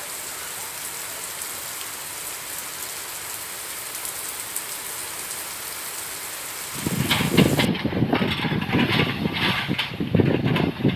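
A steady hiss, then about seven seconds in a louder, uneven mechanical clatter with repeated knocks and crunches: a Komatsu PC200 excavator at work chopping oil palm trunks.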